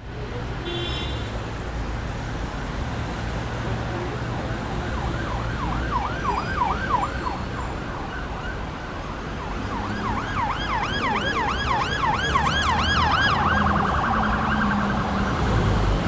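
Busy city street ambience: a steady rumble of traffic, with an emergency-vehicle siren in a fast yelp, its pitch sweeping up and down about three times a second. The siren comes in briefly about five seconds in, then again, louder and longer, from about ten seconds in.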